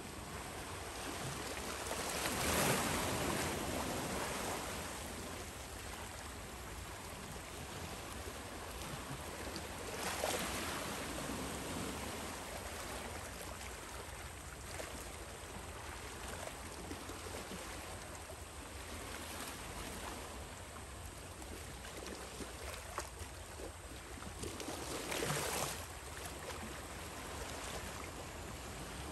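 Sea waves washing against a harbour breakwater: a steady wash with a few louder surges.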